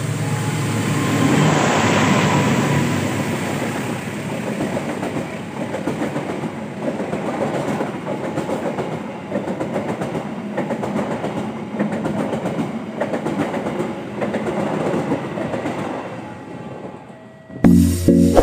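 Diesel locomotive hauling a passenger train passing close by: the engine's drone is loudest about two seconds in. The coaches then rumble and clatter over the rail joints for over ten seconds before fading away. Music comes in abruptly near the end.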